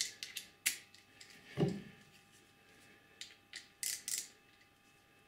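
A small hand ratchet and socket being handled and fitted onto a starter-motor through-bolt: irregular sharp metal clicks and taps, with one duller knock about a second and a half in.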